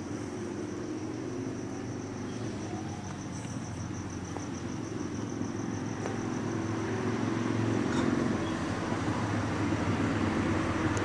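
Steady low rumble, like vehicle traffic outdoors, that grows slowly louder, with a thin, high, evenly pulsing whine above it.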